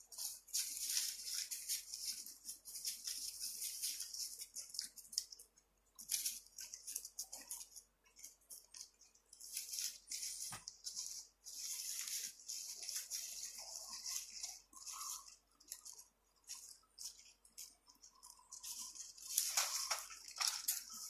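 Footsteps crunching and scuffing along a dirt path, uneven and stop-start, with brief pauses.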